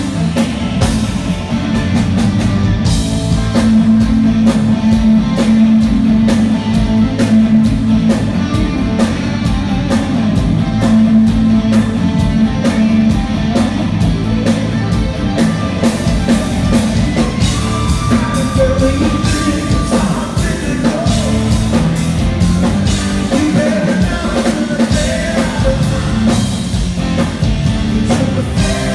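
Live rock band playing a song: drum kit, electric guitar and a singing voice, with the drums hitting densely through the first half.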